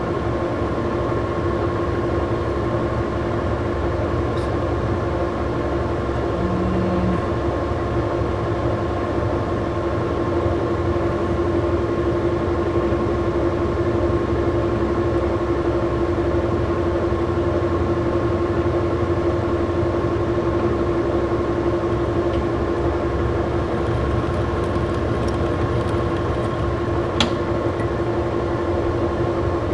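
Old Monarch engine lathe running steadily at reduced speed during a thread-cutting pass: a constant mechanical hum with a held tone. A single sharp click near the end.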